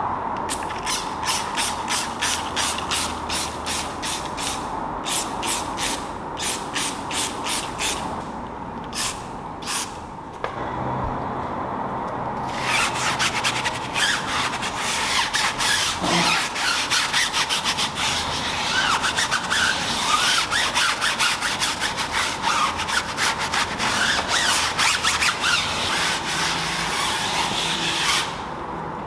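Stiff brush scrubbing a tyre sidewall lathered with foaming tyre cleaner: spaced strokes about three a second at first, then fast continuous scrubbing from about halfway.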